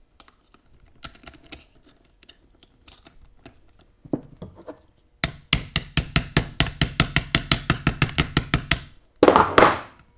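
A ball-peen hammer taps fast on the stuck clutch pack of a Dana 44 Powr-Lok limited-slip differential, about six light metallic taps a second with a ringing note, to break loose plates gummed together by old oil. Before it come small clicks of a screwdriver prying at the plates, and near the end a short, louder burst of scraping noise.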